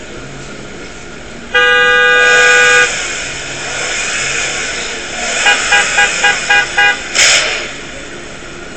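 Car horn: one long blast lasting over a second, then after a pause about six short toots in quick succession, followed by a brief noisy burst.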